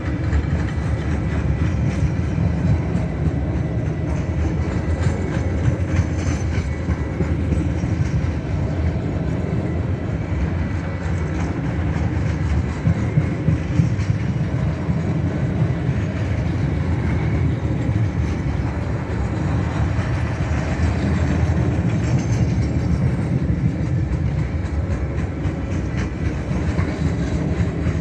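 Freight cars of an Alaska Railroad train rolling steadily past: a continuous low rumble of steel wheels on rail, with faint clicks mixed in.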